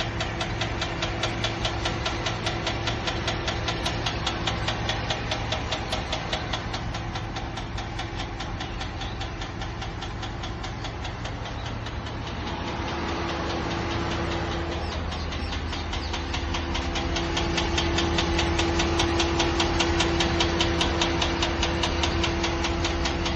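Car engine idling with a fast, even ticking from the engine bay, a ticking that has only just started and whose cause is unknown.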